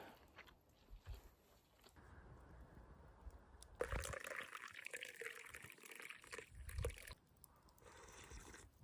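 Liquid being poured for about three seconds, starting about four seconds in and ending with a light knock, among scattered small clicks and knocks of handling.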